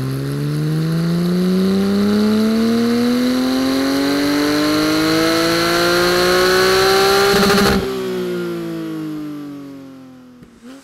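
Porsche 718 GT4's 4.0-litre naturally aspirated flat-six making a full-throttle dyno pull, its note climbing steadily in pitch for about eight seconds. Then the throttle shuts abruptly and the engine winds down as the rollers coast. The exhaust is stock headers, resonated over-axle pipes and the stock muffler, with the exhaust valves held fully open.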